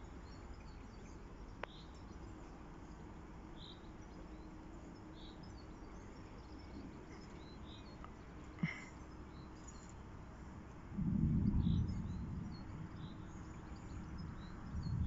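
Small birds chirping now and then over quiet outdoor ambience. About eleven seconds in, a low rumble swells and fades away over a few seconds.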